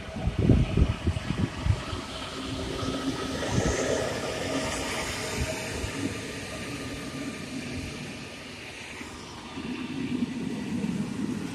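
Electric passenger train passing at speed: an EU160 (Siemens Vectron) locomotive goes by with loud, uneven low buffeting in the first two seconds, then its Intercity coaches roll past with a steady rush and rumble of wheels on the rails, swelling again near the end.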